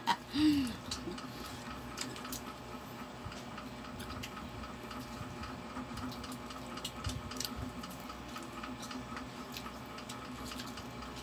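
Quiet mukbang eating sounds: chewing and fingers picking rice and fried fish off plastic plates, heard as scattered soft clicks and smacks over a faint steady hum.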